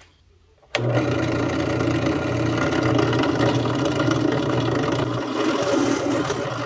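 Benchtop drill press motor starts suddenly about a second in and runs steadily with a low hum as its bit drills a hole through an aluminum hinge bracket.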